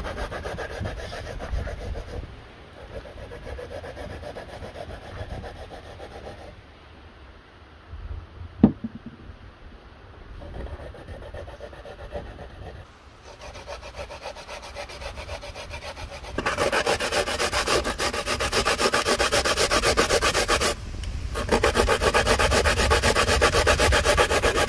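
Coconut being grated on a hand grater: rapid, even rasping strokes that grow much louder about two-thirds of the way through, with a brief pause near the end. A single sharp knock about a third of the way in.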